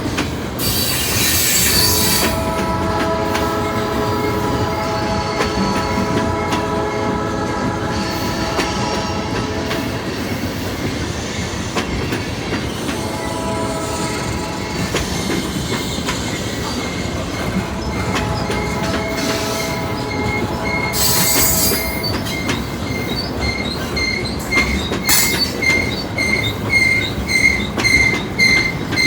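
A heavy rock train's diesel locomotives, a GP15-1 and an SD40-2, pass working hard over the rumble of the cars. The multi-tone air horn sounds long, long, short, long, the grade-crossing signal. About three quarters of the way in, a bell starts ringing steadily, about two to three strikes a second.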